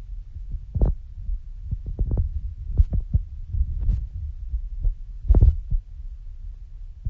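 Tennis balls struck with racquets during a grass-court rally, heard as several sharp pops a second or two apart over a low, throbbing rumble of wind buffeting the microphone.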